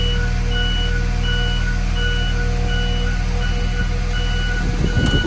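A school bus's reverse alarm beeping steadily, a little over one beep a second, over the low hum of the idling engine. Near the end there is a short clunk and the beeping stops.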